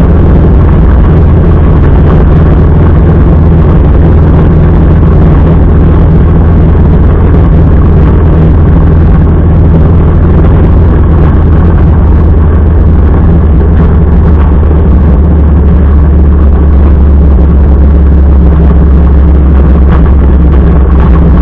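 Motorcycle running at a steady speed, its engine note loud and unchanging with no revving or gear changes, over a dense rush of riding noise.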